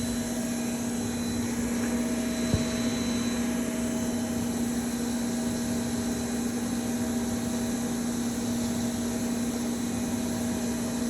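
CNC milling machine cutting with light passes: a steady spindle hum over an even hiss, with a single short tick about two and a half seconds in.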